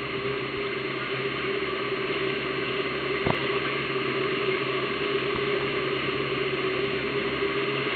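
Boat engine running steadily while under way, a constant hum over the rush of water along the hull.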